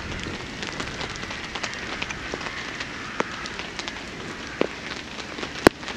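Campfire of wet wood crackling, with scattered small pops over a steady hiss and one sharp, loud pop near the end.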